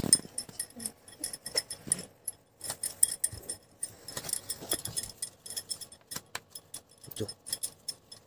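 Kitchen handling sounds: irregular light clinks and taps, several a second, while hard baati dough is shaped into balls by hand.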